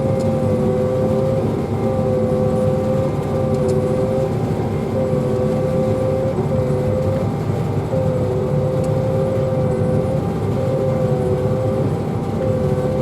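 Pea viner running steadily: a constant low engine rumble under a steady whine that drops out briefly every second or two.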